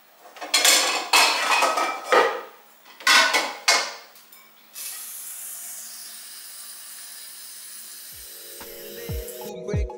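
Metal pots and pans clattering against each other as a pot is pulled out of a kitchen drawer. From about five seconds in, a kitchen tap runs steadily into the pot, and music starts near the end.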